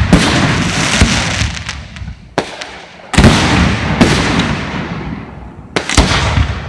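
Aerial fireworks bursting: a string of sudden loud bangs, one every second or two, each trailing off in a long crackling rumble.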